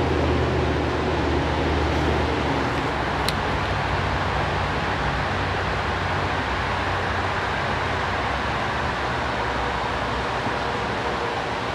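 Steady rushing of flowing creek water below a dam, an even hiss with no breaks. A low hum fades out over the first two seconds, and there is one faint tick about three seconds in.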